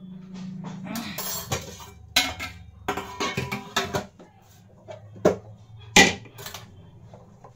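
Steel spoon and stainless-steel spice box clinking and clattering as they are handled, with a quick run of sharp clinks in the first few seconds and a single loud clink about six seconds in.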